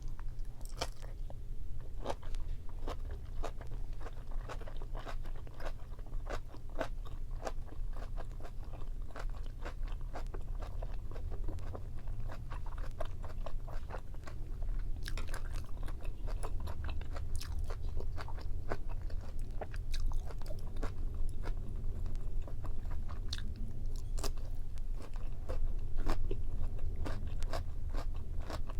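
Close-miked eating of boiled pork and Korean kimchi: chewing and biting with many short, crisp crunches in quick succession, over a steady low hum.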